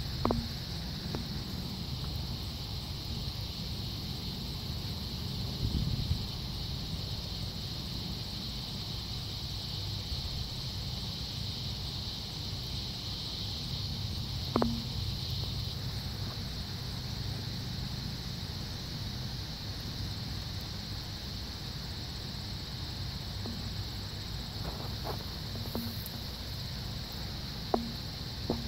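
Steady high chirring of insects in the background over a low outdoor rumble, with a few short clicks, one about halfway through and one near the end.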